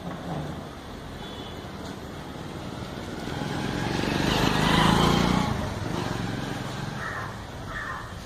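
A road vehicle passing by, growing louder to a peak about five seconds in and then fading away. Crows caw a few times near the end.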